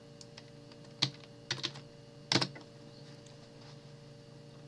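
Computer keyboard being typed on: a handful of sharp key clicks, grouped between about one and two and a half seconds in, with a few fainter ticks, over a faint steady hum.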